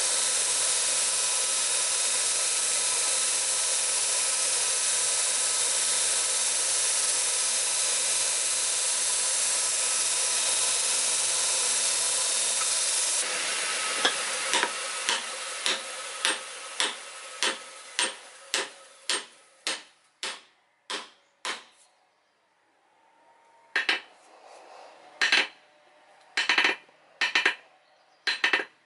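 Handheld electric sander running steadily while dressing a steel hammer head, cutting off abruptly about 13 seconds in. A string of sharp, evenly spaced ticks follows and fades away, and a few louder sharp metal knocks come near the end.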